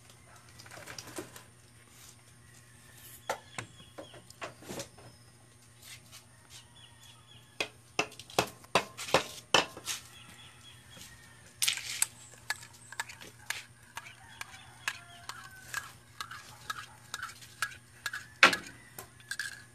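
A metal spoon stirring coffee in a mug, clinking against the sides in short, irregular taps, with runs of quick clinks in the middle and the second half.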